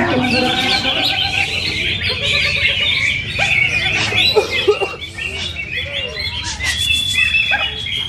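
Caged contest songbirds, among them green leafbirds (cucak hijau), chirping and whistling in a dense, overlapping chorus. A long, steady whistle comes near the end.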